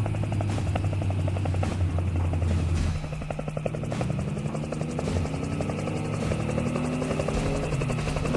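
Helicopter sound effect: rotor blades chopping rapidly over a low engine hum. About three seconds in the hum drops a little, and a slowly rising pitched tone joins it.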